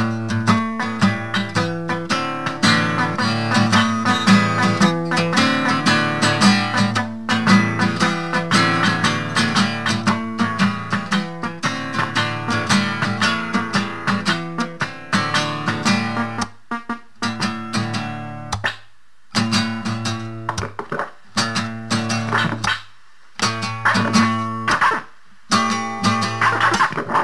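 Acoustic guitar music, plucked and strummed, broken several times in the second half by abrupt cuts where the sound drops out for a moment.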